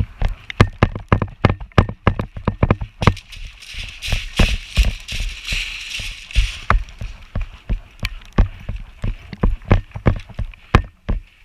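A player's footsteps with gear rattling: irregular thuds and clicks, several a second, with a hiss in the middle.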